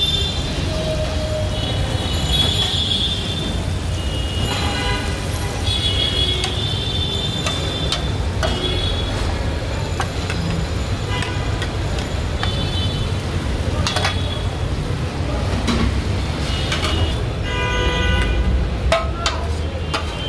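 Metal spatula scraping and tapping on a large flat iron griddle as cooked chicken chaap is scooped onto plates, in short sharp clicks. Behind it, a steady rumble of street traffic with car horns honking now and then, several together near the end.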